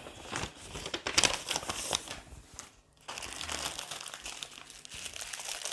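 Clear plastic bag crinkling as it is handled and opened; inside are small sealed bags of square acrylic diamond-painting drills. There is a short pause about three seconds in, then the crinkling goes on.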